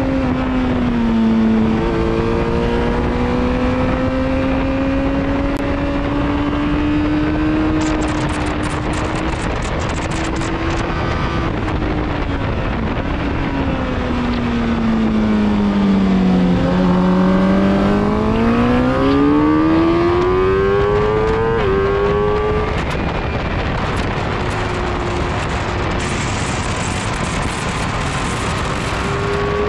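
Onboard engine sound of a vehicle at speed on a race track, heard over steady wind noise. The engine note climbs slowly, then falls away for several seconds as it slows, then climbs again with a sudden step about 22 seconds in, like a gear change.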